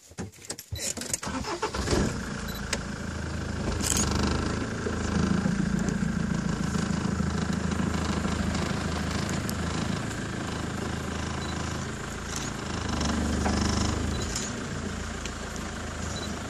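Safari game-drive vehicle's engine starting up after a few knocks in the first two seconds, then running steadily with slow rises and falls in revs as the vehicle moves.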